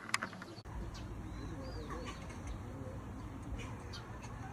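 A sharp click, then birds chirping and calling over a steady low rumble of outdoor ambience.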